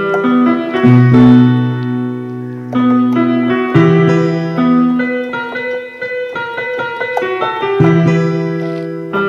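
A Hesedion portable digital instrument played with a piano-like voice: a slow melody over long held bass notes that change every one to three seconds.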